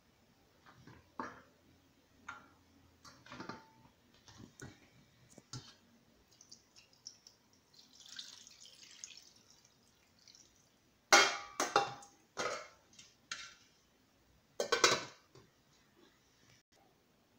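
Okra pods dropped one at a time into an enamel frying pan of chicken, making light knocks. Water is poured in over them for a second or two. Then come loud metal clanks from cookware being set down, the last group as the aluminium lid goes onto the pan.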